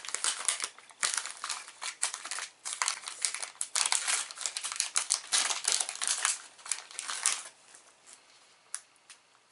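Thin plastic candy wrapper crinkling and crackling as it is pulled open and peeled off a marshmallow ice-cream-cone candy. The crinkling is dense and stops about seven and a half seconds in.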